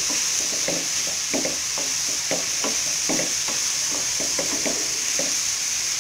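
Sliced onions sizzling as they sauté in coconut oil in a non-stick pan, a spatula stirring them in quick strokes about three times a second.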